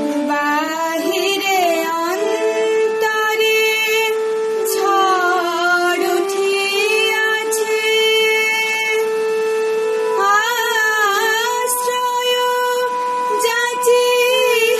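A girl singing a slow melody with wavering, ornamented held notes, over steady sustained instrumental notes that move step by step beneath her voice.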